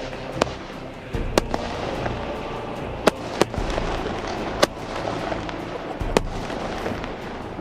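Fireworks display: about seven sharp bangs of bursting shells at uneven intervals, over a continuous low rumble and crackle.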